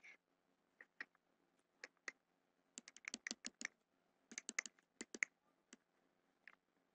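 Faint, light clicks of a stylus tapping on a tablet screen while drawing dashed lines: a few single taps, then two quick runs of taps about three and four and a half seconds in.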